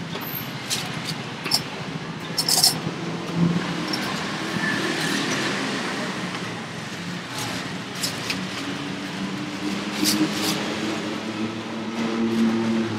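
Busy street ambience: traffic noise with indistinct voices and scattered sharp clicks, and a low steady hum coming in past the middle.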